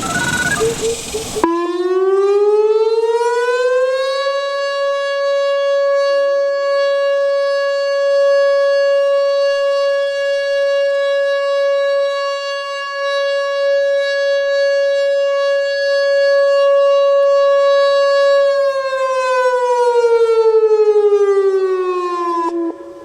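Whelen WPS-2906 electronic outdoor warning siren sounding its short alert tone, loud. The pitch rises over about three seconds, holds one steady note for about fourteen seconds, then falls away and stops near the end.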